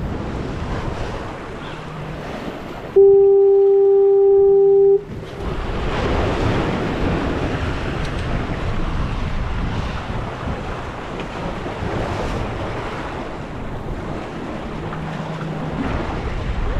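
A single loud horn blast, one steady note held for about two seconds and cutting off sharply, about three seconds in. Wind and waves on the jetty rocks make a steady rushing noise around it.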